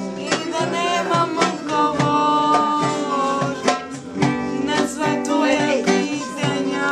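A voice singing over a strummed acoustic guitar.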